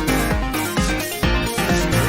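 Electronic background music with a pulsing beat and a bass line.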